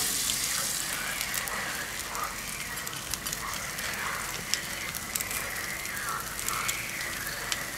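Bacon, fried eggs and toast sizzling in fat on a griddle plate, with a steady hiss and many small crackling pops.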